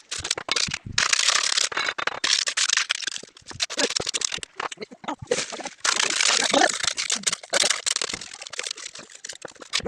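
Irregular scraping and crunching of wet concrete being shovelled and packed into plank formwork for a masonry band beam.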